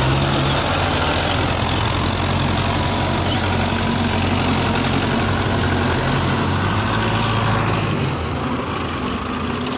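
Belarus tractor's diesel engine running steadily while its front blade pushes soil. The engine sound drops off a little about eight seconds in.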